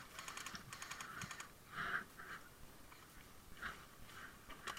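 Airsoft guns firing short bursts of rapid clicks, about ten shots a second, in three or four quick bursts in the first second and a half, then scattered single clicks.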